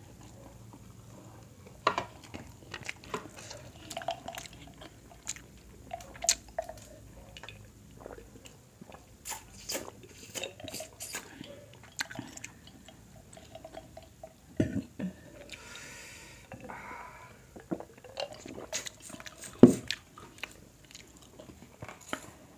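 Close-up mukbang eating sounds: chewing, lip smacks and sucking while crab and corn from a spicy seafood boil are eaten by hand. Scattered sharp cracks and clicks of crab shell being picked apart, the loudest one near the end.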